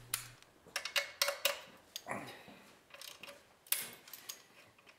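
Socket ratchet clicking in short, irregular bursts, with light metal clinks, as the 13mm nut holding the wires is tightened onto the alternator's stud.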